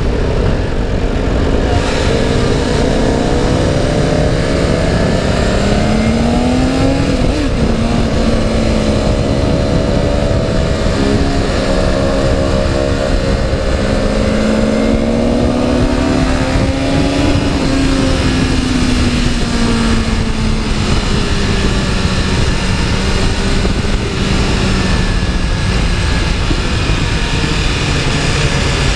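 BMW S1000RR inline-four engine running on light throttle, its note rising and falling gently, with a sudden drop in pitch about seven seconds in. Heavy wind rush on the microphone runs under it.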